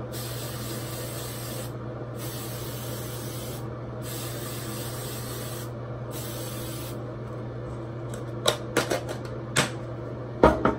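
Aerosol hairspray can spraying in four hissing bursts of about two seconds each, followed by a few sharp clicks and knocks near the end.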